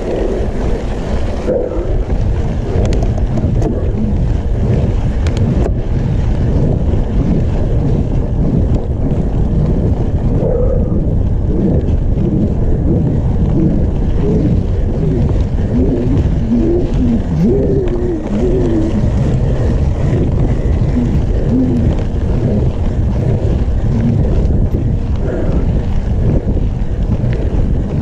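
Steady wind buffeting on the microphone of a point-of-view camera on a mountain bike riding down a dirt road, mixed with the rumble of the tyres over dirt and gravel.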